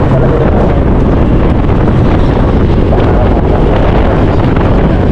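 Loud, steady wind noise buffeting the microphone of a moving motorcycle.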